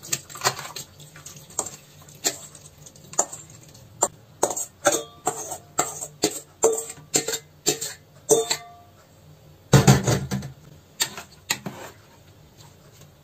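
A spoon knocking and scraping against a metal pot as sliced cucumbers and their liquid are tipped in: irregular clinks and taps, some ringing briefly. A louder, heavier clatter comes about ten seconds in.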